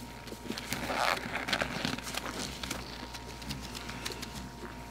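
Rustling in straw bedding, with scattered small clicks and crackles and a brief louder rustle about a second in.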